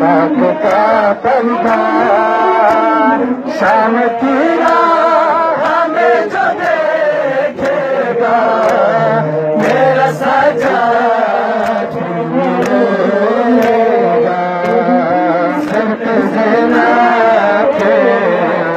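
A group of men chanting a Shia mourning lament (nauha), with sharp hand slaps of matam, ritual chest-beating, cutting through the chant at irregular intervals.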